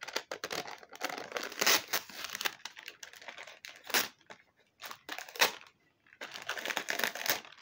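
Sticky lint-roller paper being handled and peeled, crinkling and tearing in irregular bursts with short pauses.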